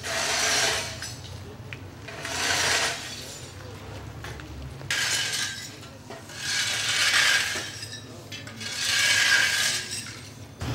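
Broken glass debris scraping and clinking in five separate strokes, each about a second long and roughly two seconds apart.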